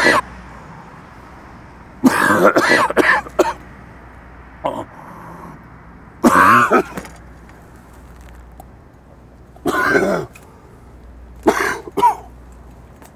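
A man coughing and clearing his throat in repeated fits, a cluster of coughs about two seconds in and then another fit every three to four seconds.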